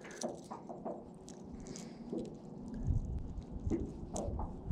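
Faint clicks and rustles of hands working at a hooked bass and a small lure to free the hook. From about three seconds in there is a low rumble of wind on the microphone.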